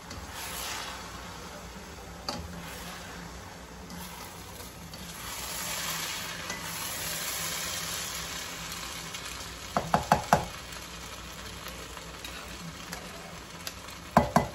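Rice noodles being stirred and tossed in a hot pan with a slotted spatula and a fork, over a steady sizzle. A quick run of sharp metallic clinks comes about ten seconds in, and again near the end, as the utensils knock.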